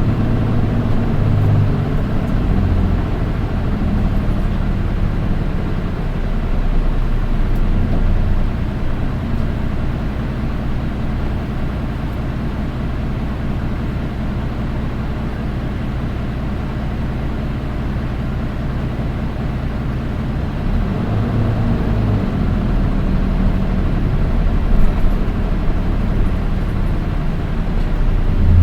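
Interior running sound of a Nissan Diesel Space Runner PDG-RM820GAN city bus with Nishi-ko bodywork: the diesel engine pulls and eases as the bus moves between stops, its note stepping up and down near the start and again about two-thirds of the way through. This particular bus is known for an unusually shrill, high-pitched engine note compared with others of its type.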